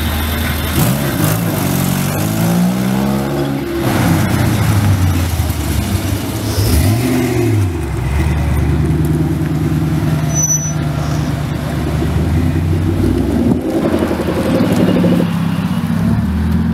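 Cars driving past one after another as they pull away: a modified Honda Civic, then a Ford Mustang, then a Mazda Miata. In the first few seconds an engine revs up with climbing pitch, dropping suddenly about four seconds in as if shifting, and a steady low engine drone fills the middle.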